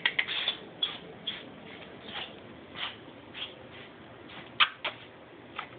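A pet sneezing in a fit: a run of about ten short sneezes at irregular spacing, the loudest two coming close together partway through.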